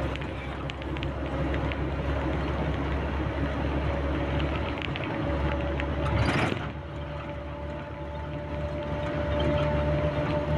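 Engine of a small open vehicle running steadily at cruising speed, with road and wind noise. About six seconds in there is a short, louder rush of noise, like a vehicle passing close by.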